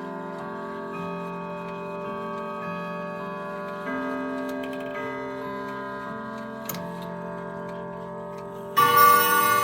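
Ridgeway triple-chime grandfather clock sounding a slow run of chime notes, each ringing on, over the ticking of its movement. Near the end a much louder, brighter strike rings out.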